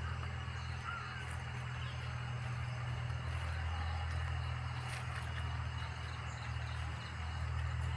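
Outdoor ambience under trees: crows cawing and small birds chirping over a steady low rumble.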